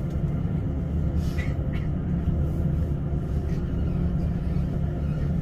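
Elizabeth line Class 345 electric train running at speed, heard from inside the carriage as a steady low rumble. Two faint, brief higher-pitched sounds come about a second and a half in.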